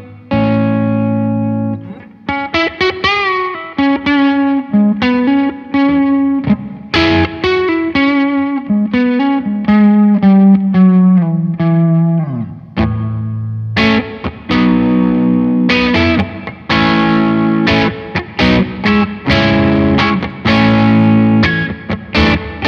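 Electric guitar played through a Blackstar JJN20 MkII amp with a distorted tone: single-note lead lines with string bends and vibrato, then strummed chords from about halfway in.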